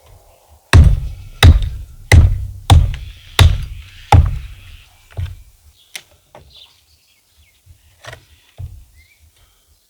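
Firewood being chopped into small kindling pieces on a wooden stump: six hard chops about two-thirds of a second apart, then a few lighter knocks.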